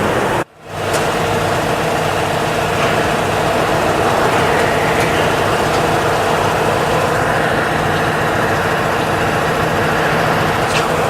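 Steady mechanical drone of running workshop machinery, with several constant tones under a noisy hiss. It cuts out abruptly for a moment about half a second in, then resumes.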